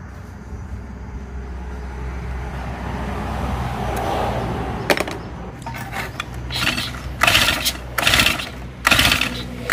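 Honda GX50 four-stroke brush-cutter engine being pull-started: in the second half, three or four quick tugs on the recoil starter, each a brief cranking whirr, and the engine does not catch. It still won't start after the carburettor cleaning, and the pulling sounds odd, which leads the mechanic to suspect the valve clearance.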